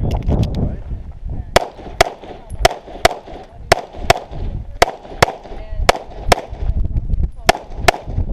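Pistol shots during a stage run, about a dozen in all, mostly fired as pairs roughly half a second apart, with short gaps between the pairs. The paired shots are double taps on targets.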